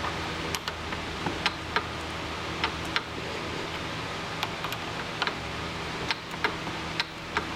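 Small metal lathe running steadily with a low hum, with about fifteen sharp ticks scattered unevenly through it.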